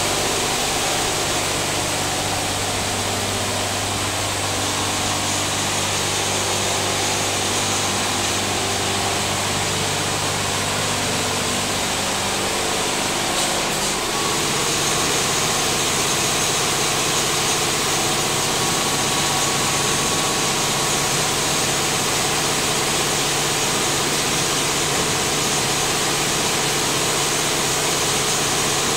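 Risense double-arm touchless car wash machine running: a steady pump-and-motor hum under the hiss of high-pressure water spray hitting the car. About halfway through, the hum changes to a different pitch.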